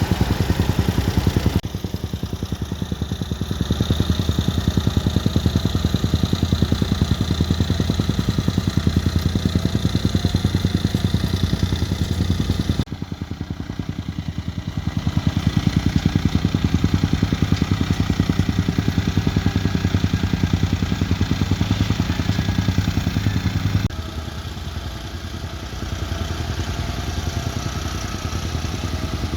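Bulldozer's diesel engine running steadily with a fast, even firing beat. The sound changes abruptly three times.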